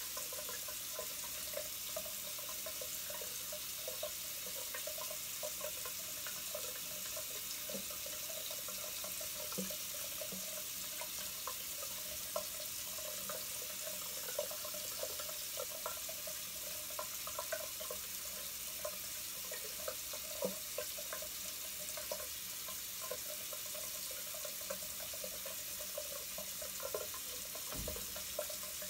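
Tap water running steadily into a sink, with small scattered crackles of a straight razor cutting through lathered stubble.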